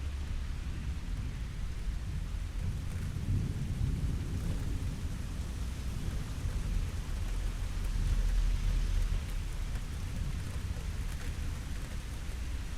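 Steady rain with low rolling thunder, the rumble swelling a few seconds in and loudest about two-thirds of the way through.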